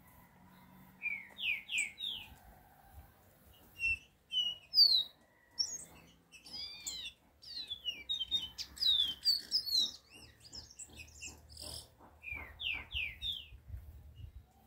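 A caged chiviro verde songbird singing: quick phrases of high, sliding whistled notes, with a short phrase about a second in, a long dense run in the middle and another short phrase near the end.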